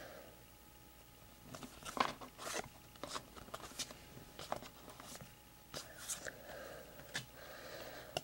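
Baseball trading cards being handled and flipped through one by one, a run of irregular light clicks and short sliding scrapes.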